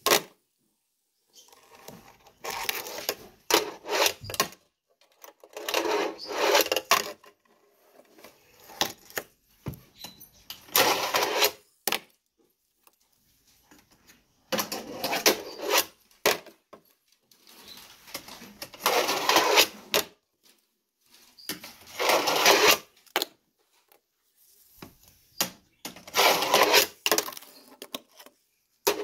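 A fingerboard's small wheels rolling and rattling across a miniature ramp in repeated runs, each about a second long and coming roughly every four seconds, with sharp clacks of the board hitting and landing between them.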